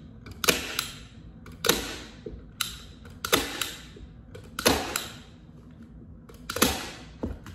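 Staple gun firing staples through shower-curtain fabric into a wooden canvas stretcher frame: about seven sharp clacks, spaced irregularly one to two seconds apart, one of them weaker.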